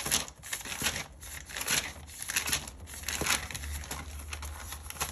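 Crinkling and rustling handling noise in a run of short, irregular strokes, one or two a second, over a faint low hum.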